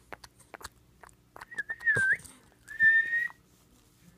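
Cane Corso puppy's soft sucking clicks, then two high, thin whistle-like tones, the first wavering up and down and the second held steady for about half a second.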